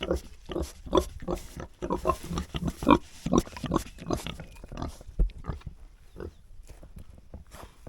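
Pigs grunting in a quick run of short grunts, several a second, that thins out over the last few seconds.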